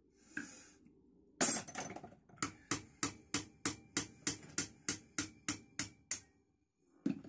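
Hammer striking a punch to drive the retaining pin out of a Record 74 vise's drive screw, metal on metal. A few heavier blows, then a steady run of about a dozen light, ringing taps, about three a second, and one last tap near the end.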